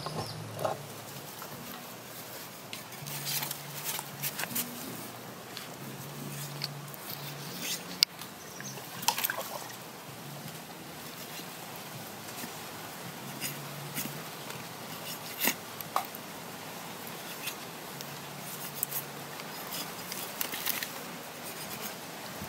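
A cleaver cutting into a raw plucked duck on a stone slab, with scattered sharp clicks and taps of the blade and the handling of the carcass.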